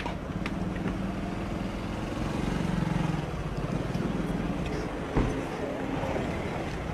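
Car engine running close by amid a noisy street crowd, with indistinct voices and the rustle of the phone being jostled; a single sharp thump about five seconds in.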